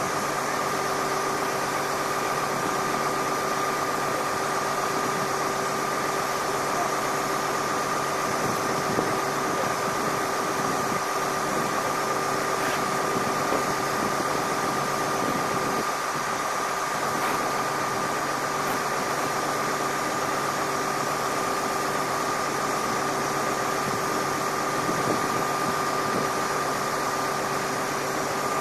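Steady drone of an idling bus engine, with a constant hum and a high whine running unchanged, cutting off abruptly at the end.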